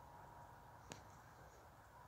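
Near silence: faint outdoor background hiss, with a thin steady high hum that fades out just past halfway and a single faint click a little before halfway.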